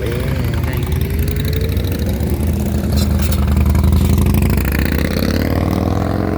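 A motor vehicle's engine running close by in passing traffic, growing louder to a peak about four seconds in, with its pitch rising toward the end as it accelerates.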